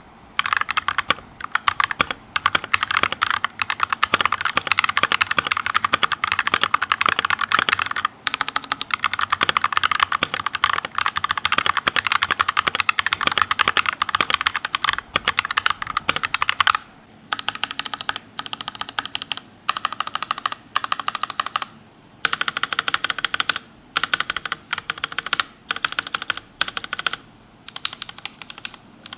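Typing on a Leaven H68 65% mechanical keyboard with yellow switches: fast, continuous keystrokes for the first seventeen seconds or so, then shorter bursts of typing with brief pauses between them.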